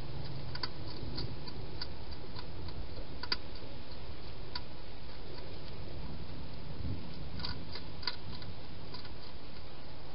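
Wild hedgehog eating, with irregular sharp clicks and crunches, sometimes a few a second, over a steady low background noise; the strongest click comes about three seconds in.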